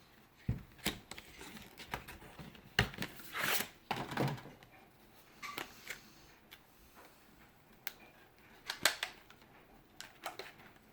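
Plastic retail packaging of RAM sticks being opened and handled: irregular sharp clicks and short crinkling rustles, busiest a few seconds in and again near the end.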